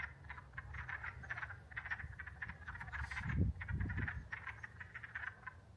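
Spring chorus of frogs: many short calls overlapping, packed closely and continuing throughout. A low rumble or bump comes in about three and a half seconds in.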